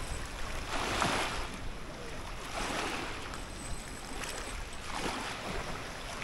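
Rushing noise of wind and lapping lake water, swelling and fading about every two seconds.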